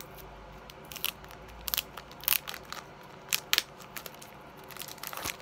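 Clear plastic trading-card sleeve crinkling and crackling as it is handled, in a string of short sharp crackles.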